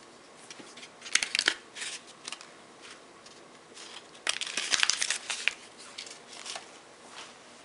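Plastic and paper packaging crinkling as it is handled, in two bouts: a short one about a second in and a longer one from about four seconds in.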